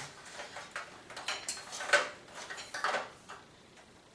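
Metal parts of a mitre saw and its folding stand clinking and knocking as they are handled and stowed: a few sharp clanks, the loudest about two seconds in.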